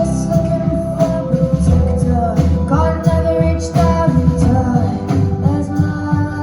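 Live rock band playing with a steady drum beat, bass and guitar, and a woman's singing voice.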